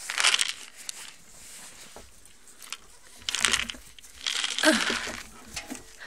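Straw bedding rustling and crunching in three bursts, the loudest about four to five seconds in.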